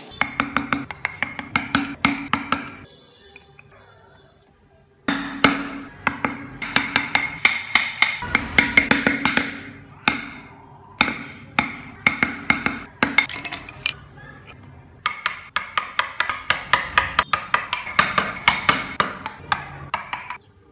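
Wood chisel struck in quick repeated taps, about four or five a second, each with a short ringing note, cutting into a block of wood. The taps come in runs that stop and restart abruptly.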